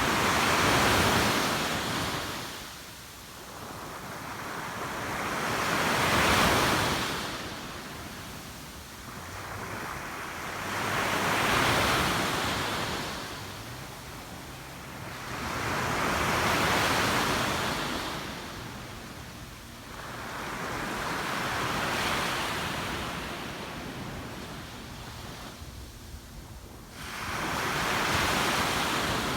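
Surf breaking on a beach, each wave swelling into a rushing wash and then falling back, about one every five seconds. A little wind on the microphone.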